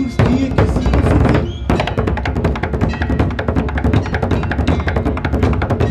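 Live Portuguese folk group playing: men singing over fast, steady drumming on large bass drums (bombos).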